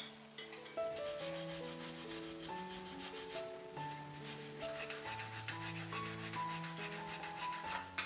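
White radish (daikon) being grated on a handheld stainless steel paddle grater: quick, even rasping strokes, several a second, over background music.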